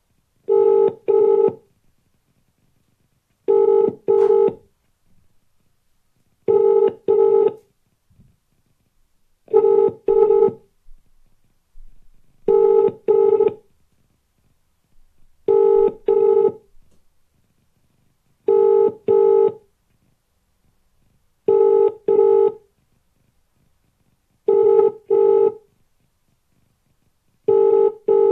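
British telephone ringback tone: an outgoing call ringing out with the double ring, two short rings repeating about every three seconds. It rings on without being answered.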